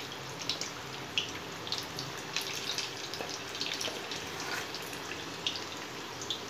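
Methi (fenugreek) pakoda fritters deep-frying in hot oil in an aluminium kadai: a steady sizzle with frequent small crackles and pops.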